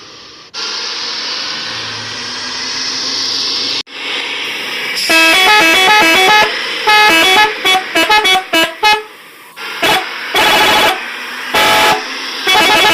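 Toy bus's electronic sound effects: a steady engine-like noise for the first few seconds, then a 'telolet' bus horn melody of quick stepped notes, ending in three separate held horn blasts.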